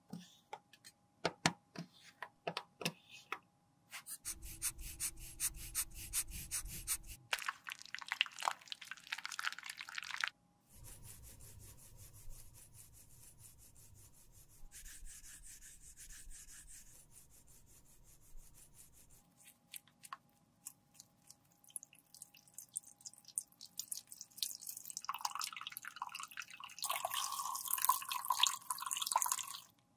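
A metal spatula scraping and clicking against an empty eyeshadow palette pan, then a brush scrubbing the palette. Near the end, rubbing alcohol is poured in a stream into a stainless-steel tray.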